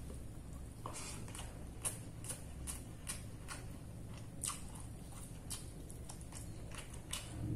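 A person eating spicy chicken feet with rice by hand, chewing and smacking: an irregular run of short wet mouth clicks, roughly two a second.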